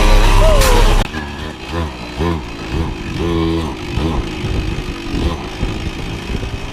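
Loud music for about the first second, then a small motorbike engine revving in short rising-and-falling blips, several in a row, over a steady lower running hum.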